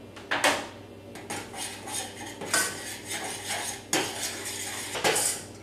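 A spoon stirring and scraping a crumbly mix of breadcrumbs and melted coconut oil in a small metal saucepan, knocking against the pan in irregular clinks about every half second to a second.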